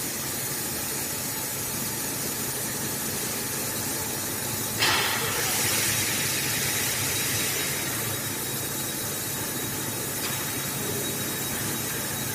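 20 kW CNC fiber laser cutting machine running with a steady hiss. About five seconds in, a sudden louder rush of hiss starts and fades back over a few seconds.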